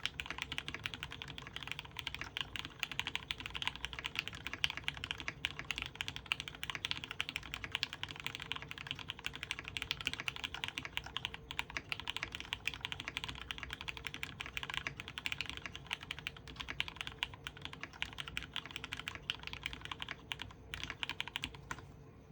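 Fast, continuous typing on an Orion v2.5 custom mechanical keyboard with lubed Cherry Retooled Black linear switches, an aluminium plate and PBT keycaps. The keystrokes run in a dense, even patter and stop shortly before the end.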